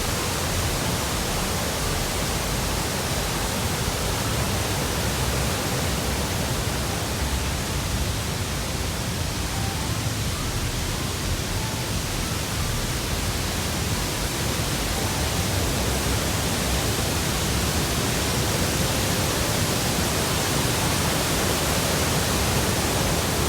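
Steady roar of a large waterfall, Elephant Falls, close by: a dense, even rush of falling water that does not change.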